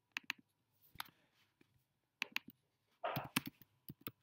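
Faint, sparse clicks from a computer keyboard and mouse, with a few quick keystrokes near the end as a word is typed, and a short breathy noise about three seconds in.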